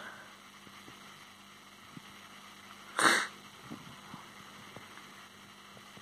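One short, sharp burst of breath noise from a person, about three seconds in, over faint room hiss.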